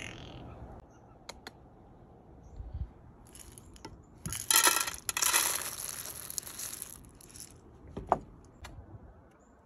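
Sunflower seeds poured by hand into a shallow metal lid, a dense rattling patter lasting about two and a half seconds and loudest in its first half. A single sharp knock follows about eight seconds in.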